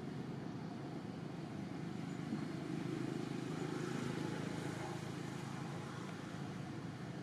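Steady low background rumble outdoors, swelling slightly around the middle, with no animal calls.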